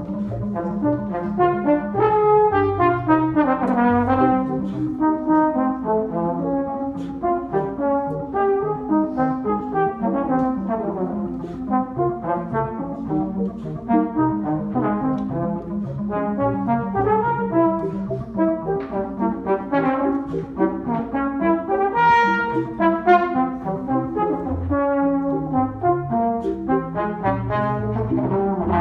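Slide trombone playing a fast Baroque allegro melody in quick, changing notes, over a pre-recorded electronic backing track with a steady, repeating low pulse.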